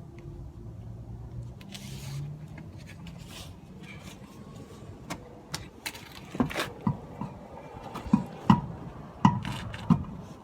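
Irregular knocks and clatter of tools and parts being handled. They are sparse at first and grow louder and more frequent in the second half, with some scraping.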